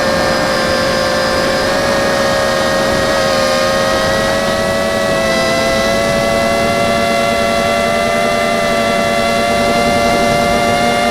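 QAV250 quadcopter's brushless motors and propellers whining steadily in flight, the pitch drifting slightly up partway through as the throttle changes.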